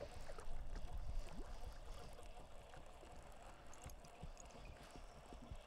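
Small waves lapping and gurgling against the hull of a fishing boat, with wind rumbling on the microphone, strongest in the first second or so.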